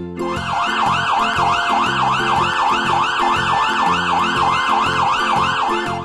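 Fire engine siren sound effect: a fast wail rising and falling about three times a second, starting about a quarter second in.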